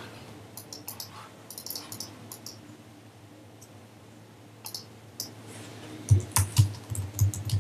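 Typing on a computer keyboard: scattered key clicks in short runs, then heavier, quicker keystrokes from about six seconds in.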